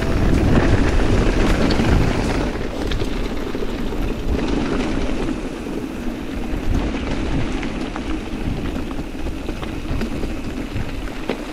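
Mountain bike rolling over a rough dirt track: tyre noise on the ground, small rattles and knocks from the bike, and wind on the microphone, loudest in the first two seconds.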